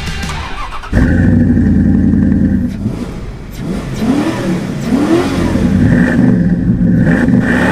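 1998 Dodge Dakota R/T's 5.9-litre Magnum V8 heard at its exhaust. It comes in loud and steady, dips briefly, then is revved up and down several times.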